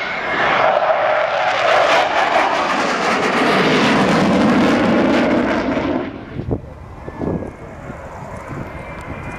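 Loud jet noise from a Sukhoi Su-27's twin AL-31F turbofans in a close pass and pull-up, deepening in pitch as the jet goes by, then falling away sharply about six seconds in.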